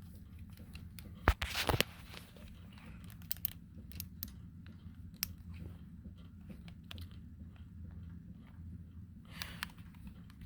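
A compact digital camera being handled by hand: scattered small clicks and rubbing, the sharpest click about a second in, over a low steady hum.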